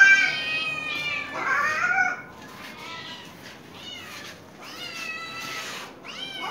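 Domestic cats meowing repeatedly: a loud drawn-out meow at the start, another about a second and a half in, then fainter meows later.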